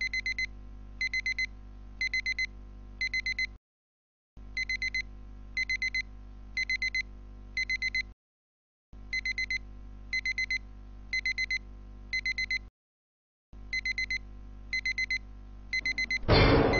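Electronic alarm clock beeping in bursts of four quick high beeps, about one burst a second, stopping briefly three times before starting again. Music starts near the end.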